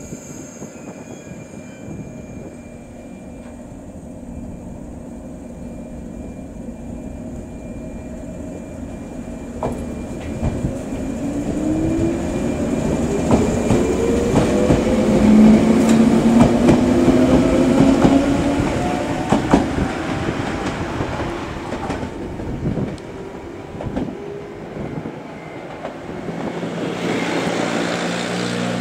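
115-series electric multiple unit pulling out and accelerating past: its traction motors hum in a pitch that rises steadily as it gathers speed, over a run of wheel clicks on the rail joints. Loudest as the cars go by, then fading as the train draws away.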